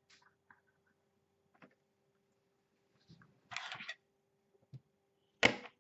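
Plastic LEGO Technic parts being handled: a few faint clicks, a short rattle of pieces about three and a half seconds in, then one sharp clack near the end as a long plastic Technic beam is set down on the table.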